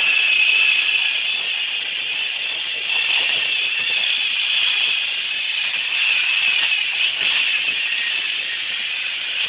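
Small electric motors of battery-powered Thomas & Friends toy engines whirring steadily: a continuous high-pitched whine.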